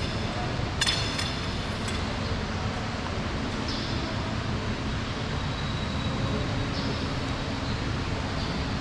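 Steady low background rumble with no speech, and a brief high metallic ring about a second in.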